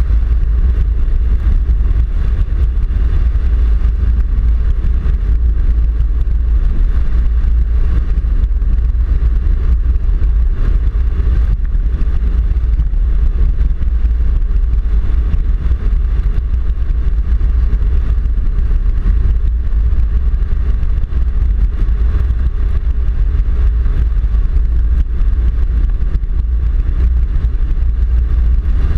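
A 4WD driving along an unsealed dirt and gravel road, picked up by a vehicle-mounted GoPro: a steady, heavy low rumble of tyres on the corrugated surface, with wind and many small clicks and rattles.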